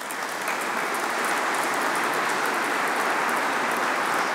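Audience applauding steadily, a dense even clapping that builds briefly at the start and then holds.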